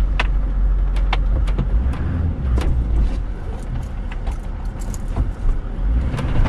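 Off-road vehicle crawling over a rutted dirt track: a steady low engine rumble with frequent clicks and rattles as it jolts over the ruts.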